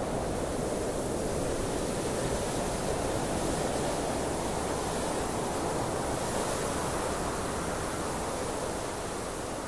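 Steady rushing wind ambience, an even noise with no distinct events, beginning to fade near the end.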